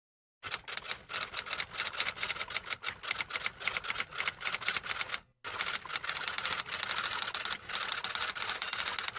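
Typewriter sound effect: rapid mechanical keystrokes clacking in quick succession, with a brief pause about five seconds in.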